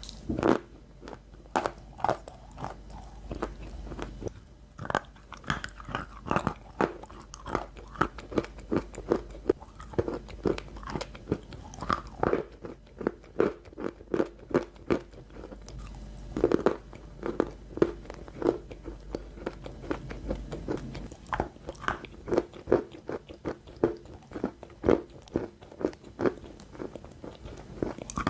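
Crunchy ball-shaped snacks being bitten and chewed, a quick run of sharp crunches, often two or three a second, with a few short pauses.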